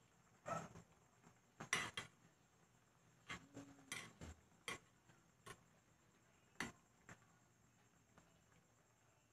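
Faint, scattered light clicks and knocks of kitchenware around a glass cooking pot boiling on a gas stove, about ten in all, the loudest about two seconds in.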